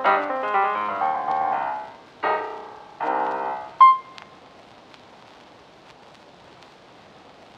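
Piano-like keyboard music playing in short phrases, ending about four seconds in with a single bright ringing note. Quiet room tone with a few faint ticks follows.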